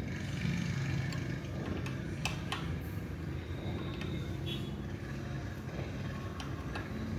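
A few faint, light metallic clicks as a fitting on a Dongfeng R175 diesel engine is turned by hand, over a steady low background hum.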